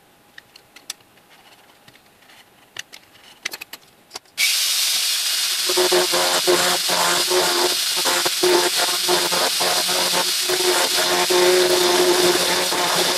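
A few faint clicks and scrapes of a utility knife scoring a wooden blank along a steel ruler, then about four seconds in a handheld rotary engraving tool starts with a sudden steady high whine. From about six seconds its small burr cuts into the wood, adding a lower steady hum and uneven scraping strokes as it is guided along the outline.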